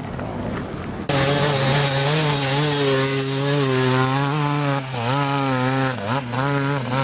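Enduro motorcycle engine revving hard under load as the bike climbs a steep dirt hill, starting loud about a second in. The pitch wavers with the throttle and drops briefly a few times near the end.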